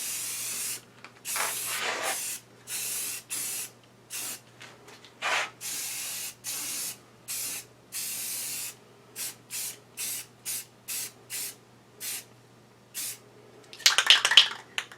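Primer being sprayed onto metal lathe parts in a series of short hissing squirts, about a second each at first, then shorter and quicker. A brief louder clatter near the end.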